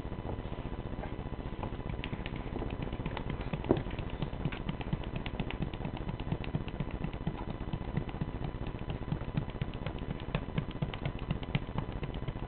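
A hand patting a Siamese cat's body in quick, even smacks, about four a second, with one louder smack about four seconds in.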